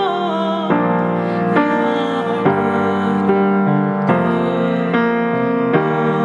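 A woman singing a slow worship song, accompanying herself on a grand piano with sustained chords struck about once a second.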